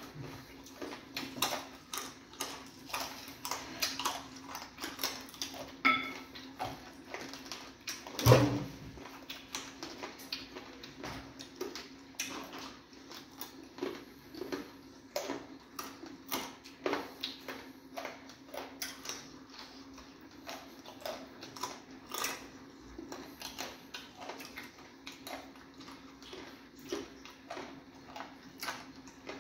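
Close-up eating sounds of fufu and egusi soup eaten by hand: frequent short smacks and clicks from chewing and from fingers on the plates, with one louder knock about eight seconds in, over a steady low hum.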